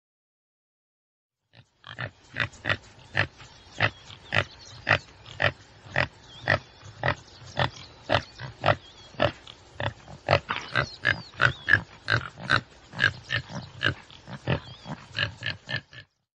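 Common tsessebe antelope calling in a long series of short, evenly repeated calls, about two a second, starting about two seconds in.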